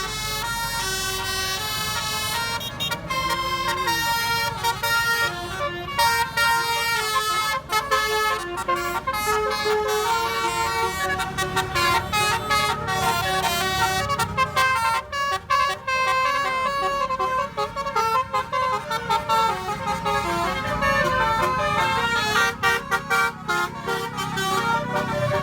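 Indonesian basuri 'telolet' multi-tone bus horn playing a tune: a long string of toots on changing notes, often broken into quick short blasts.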